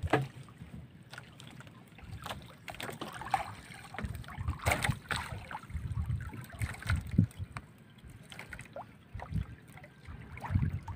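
Wet fishing net being hauled hand over hand into a small wooden outrigger boat: irregular rustling, clicks and low knocks of net and hands against the hull and a plastic crate.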